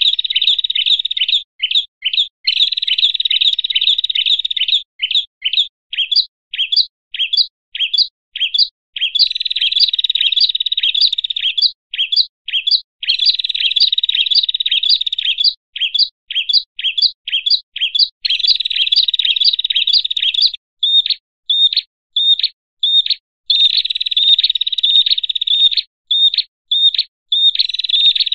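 Agitated chattering of prenjak, a small warbler, played as a bird-lure call. High, sharp chirps come at about three a second and alternate every few seconds with dense, buzzy trills lasting two to three seconds.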